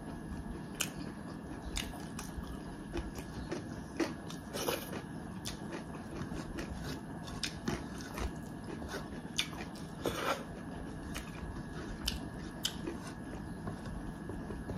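A person eating close to the microphone: chewing and biting food, with irregular sharp clicks and small crunches.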